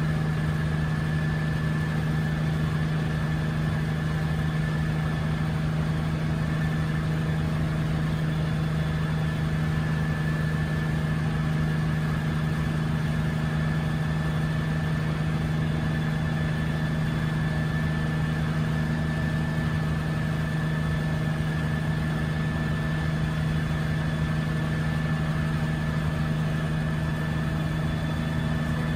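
1962 Hiller UH-12E helicopter in steady cruise flight, heard from inside the cockpit: its Lycoming VO-540 six-cylinder piston engine and rotor give a steady, unchanging drone with a strong low hum.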